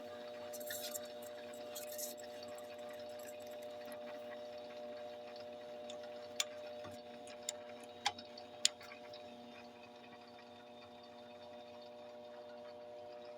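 PVC pipe echoing with a steady hum of several held tones, with a few sharp clicks about halfway through.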